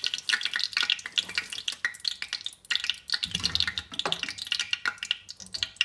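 Hot cooking oil sizzling and crackling after a batch of potato pieces has been deep-fried, a dense run of rapid crackles that cuts off suddenly near the end.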